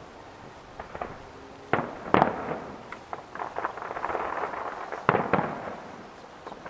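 Aerial firework shells bursting: scattered sharp bangs about a second and two seconds in, the loudest just after two seconds, a stretch of crackling, then two more bangs about five seconds in.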